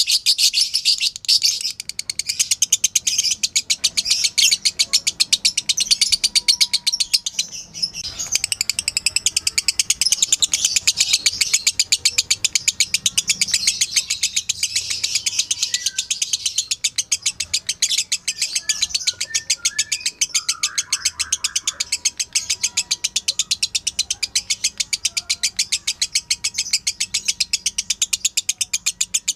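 Lovebird giving a long, rapid chattering trill ('ngekek'): high chirps repeated many times a second without pause, broken only briefly once.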